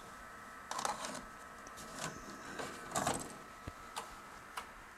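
A Hi8 videocassette pushed into the front slot of a TEAC V800G-F Hi8 deck and taken in by its loading mechanism: a series of soft clicks and short mechanical rattles.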